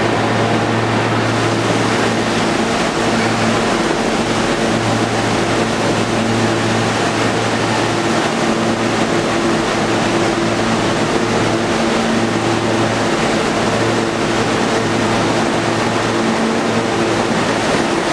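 New York City subway train standing at the platform with its equipment running: a steady low electrical hum with fainter overtones over a constant rumble and hiss.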